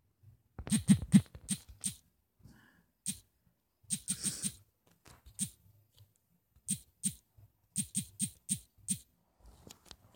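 Typing on a smartphone's touchscreen keyboard: about twenty quick key clicks in irregular bursts, each a short tap with a small high-pitched tick.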